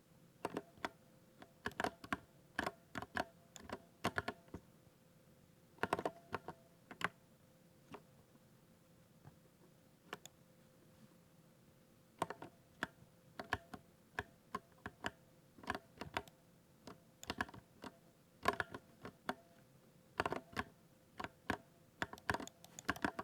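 Typing on a 60% keyboard: quick runs of key clicks in irregular bursts, with a sparser stretch of single clicks about a third of the way in.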